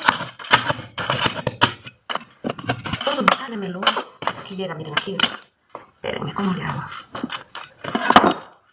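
Metal putty knife scraping and chipping loose, bubbled paint off a smooth plaster wall, in a run of short sharp scrapes and clinks.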